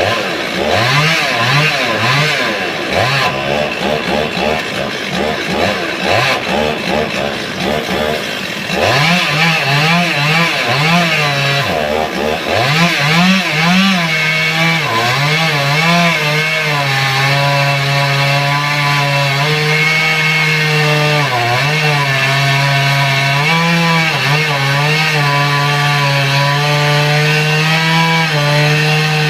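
Two-stroke chainsaw cutting wood. For the first few seconds it is revved up and down, then from about nine seconds in it runs at a mostly steady high pitch with brief dips as it works through the cut.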